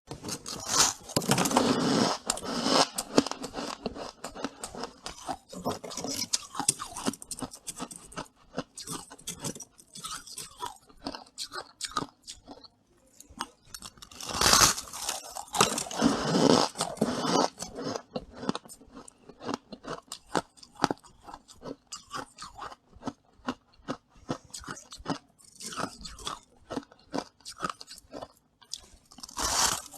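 Close-miked crunching and chewing of squeaky freezer frost. Dense crackly chewing runs throughout, with louder bursts of crunching about a second in, twice around the middle and again near the end.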